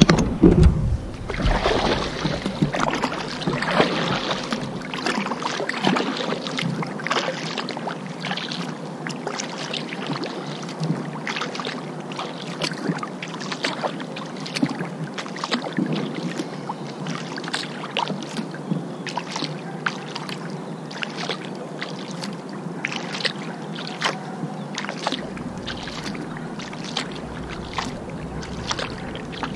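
Kayak paddling: the paddle blades dip and splash in the water, making many small irregular splashes and drips over a steady wash of water noise. It opens with a low thump.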